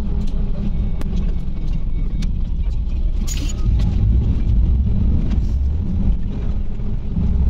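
Iveco Crossway LE 12 city bus heard from inside the passenger cabin while driving: a steady low engine and road rumble that swells a little about four seconds in. There is a short hiss about three seconds in and light clicks and rattles throughout.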